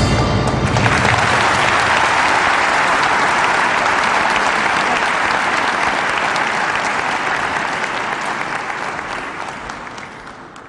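The last notes of the music stop about a second in, giving way to an audience applauding, which fades out near the end.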